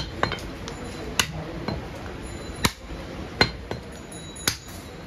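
Heavy butcher's knife chopping through goat leg meat and bone onto a wooden chopping block. The chops are sharp and irregular, roughly one a second, some with a brief metallic ring.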